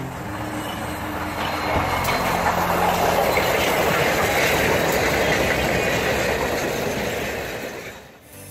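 Steam-hauled train led by ex-FEC 4-6-2 Pacific locomotive #148 rolling past, a dense rumble and wheel noise that swells as the engine and cars go by close and fades away near the end.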